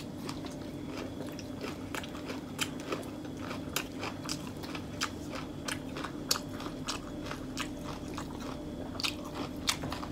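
Close-up eating sounds: a mouthful of fresh herb leaves and grilled wagyu beef rolled in lá lốt (wild betel) leaves being chewed and crunched. The crunches come as many short, irregular clicks, a few each second.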